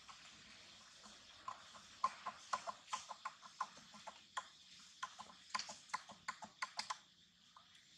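Baby macaque sucking and smacking on its own hand: a run of short, wet, irregular clicks that start about a second and a half in and stop near the end.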